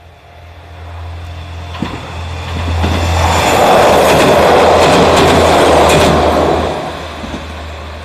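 KiHa 47 series diesel railcar passing at speed: its wheel and engine noise builds, is loudest from about three and a half to six and a half seconds in, then fades away. Clicks of wheels crossing rail joints come through it.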